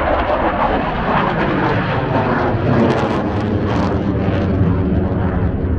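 Saab J35 Draken jet fighter flying overhead, its single turbojet engine loud and steady, the noise shifting lower to a deep rumble in the second half.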